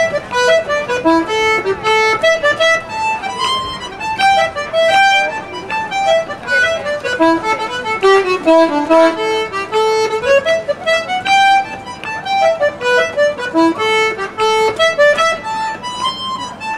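Button accordion played solo: a traditional Irish tune, a quick line of short notes stepping up and down in pitch.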